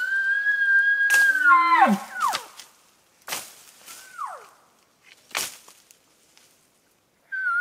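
Elk bugle: a high whistle holds steady for about two seconds and then drops away with a low growl under it. Short sharp grunts and shorter falling whistles follow, the last one starting near the end.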